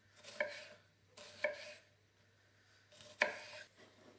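Kitchen knife slicing strawberries on a wooden chopping board: three cuts, each a sharp knock of the blade on the board.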